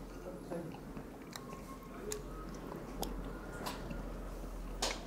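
A person biting and chewing roast suckling pig with thin, crisp crackling skin. About six sharp crunches or clicks are spread through the chewing.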